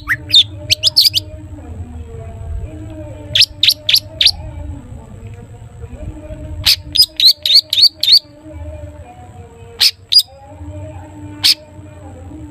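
Long-tailed shrike (cendet) calling in quick bursts of short, sharp, high 'toet' notes, several notes per burst with pauses between, over a faint low hum.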